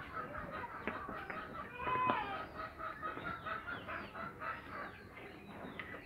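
Chickens clucking in a steady run of short calls, with one louder call about two seconds in.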